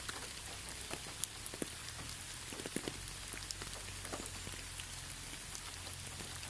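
Steady rain falling, with many individual drops tapping close by at irregular moments over the even hiss of the shower. A low steady hum runs underneath.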